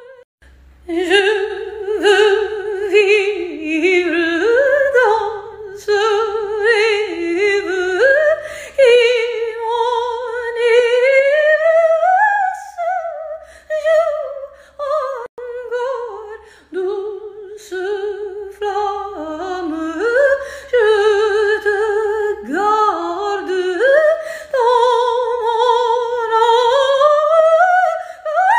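A woman's soprano voice singing an operatic waltz aria in French, with quick runs and leaps in pitch and short breaks for breath between phrases.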